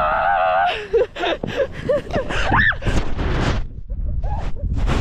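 A woman's long wavering cry, then short yelps and gasps as she falls on a snowboard in deep powder snow, over wind rumbling on the microphone and snow scuffing.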